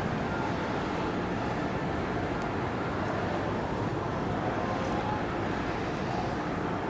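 Steady outdoor city noise: a continuous traffic rumble and hiss with no distinct events. A few faint high chirps come through it.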